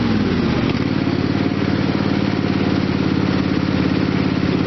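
Repowered lawn tractor's engine running under way with a fast, even pulse; its pitch dips and picks back up in the first half second, then holds steady.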